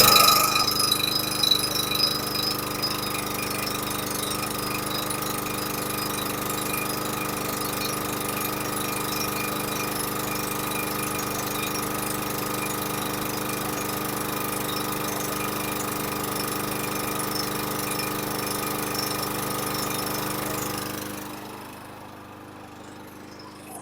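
Troy-Bilt TB110 push mower's Briggs & Stratton 550EX 140cc single-cylinder engine running steadily just after catching on the first pull. Near the end it quits and the sound dies away.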